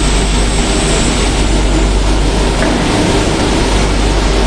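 Steady mechanical drone with a low hum and a thin, constant high whine from the drive of a heavy-duty welding positioner as it turns its table, its rotation speed being turned up.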